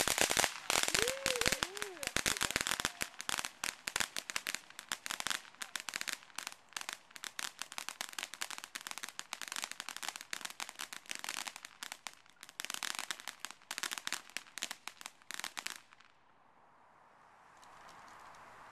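Fireworks crackling: a dense, rapid run of sharp pops and cracks, like a string of firecrackers, that stops suddenly about sixteen seconds in.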